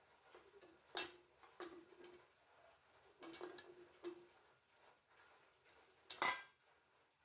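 A jar being handled and set down while fish is packed into it for kasam: about five clinks and knocks of hard containers, some with a short ringing tone, the loudest near the end.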